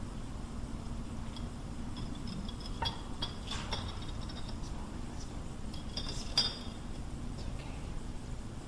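Small glass sand containers clinking lightly against one another and against a tall glass vase as sand is poured in. Several short chinks with a brief high ring, the loudest a little after six seconds in.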